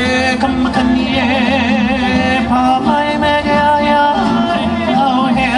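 Live Hawaiian music: singing with held, wavering notes over acoustic guitars and an upright bass.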